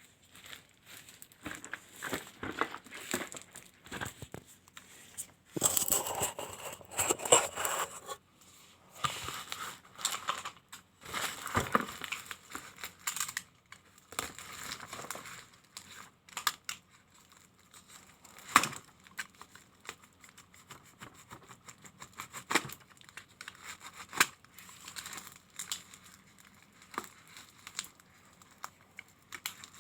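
A parcel's packaging being torn open and crinkled by hand: uneven rustling and crackling with sharp clicks, heaviest about six to eight seconds in and again around twelve seconds, then sparser handling noises.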